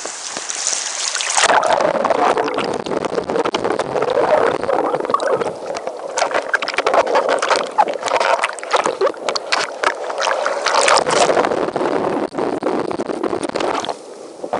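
Ocean surf washing in a high hiss, then from about a second and a half in, muffled water sloshing and splashing close against the microphone, broken by many sharp knocks and clicks.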